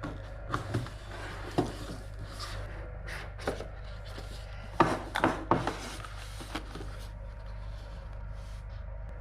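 A product box being opened and its packaging handled: scattered rubbing, scraping and light knocks, with a cluster of louder knocks about five seconds in, over a steady low hum.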